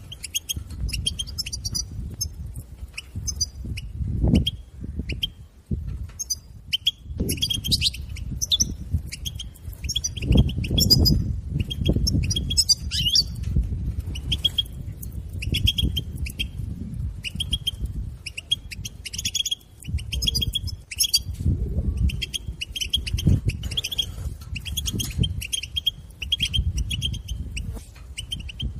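European goldfinch chattering: rapid runs of short, repeated twittering call notes, the excited 'bitbita' call used to stimulate caged goldfinches. A low rumble with several dull thumps runs underneath.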